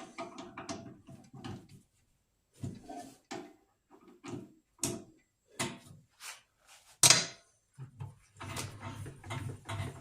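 Irregular knocks and clunks of metal being handled while setting up a drill press and its workpiece, with short quiet gaps between them. A low hum joins in about eight seconds in.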